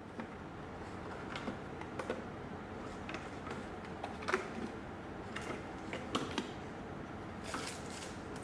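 Small medicine boxes and packets being set down and moved about on the plywood shelves of a wall cabinet: scattered light knocks and taps at an uneven pace, with a brief scrape near the end.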